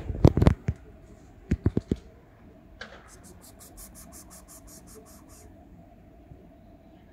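Several sharp clicks and knocks in the first two seconds, then a fast, even run of faint high ticks, about five a second, lasting a couple of seconds.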